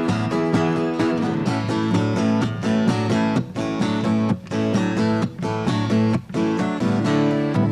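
Acoustic guitar strummed in rhythm, an instrumental passage between sung choruses, with a few short sharp stops in the strumming.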